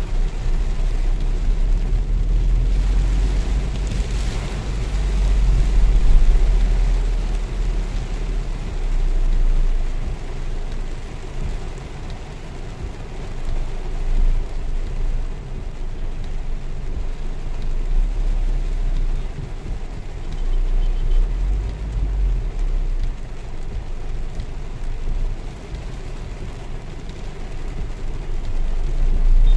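Heavy monsoon rain falling on a car's roof and windshield, heard from inside the cabin over the car's steady low rumble in slow traffic.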